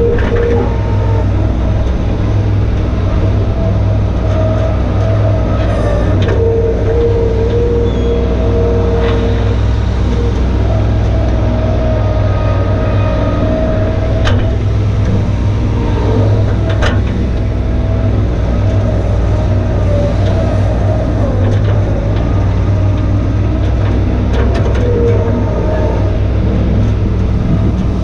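Bobcat 463 skid-steer loader running steadily under load while pushing dirt, heard from the operator's seat: a constant low diesel rumble, with a whine that rises and falls as the loader works. A few sharp clanks come through, about a quarter of the way in and again around the middle.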